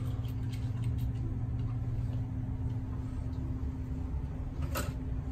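Small metallic clicks and taps as a screwdriver and wires knock against a GFCI outlet being worked out of its wall box, with one sharper click near the end, over a steady low hum.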